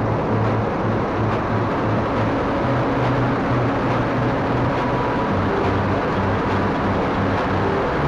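Fortschritt E-516B combine harvester running in the field, a steady mechanical din of its engine and drives heard close up from underneath the machine.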